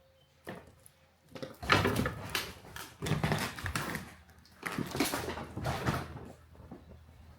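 Footsteps and creaking on an old farmhouse's wooden stairs, in three loud spells of about a second each.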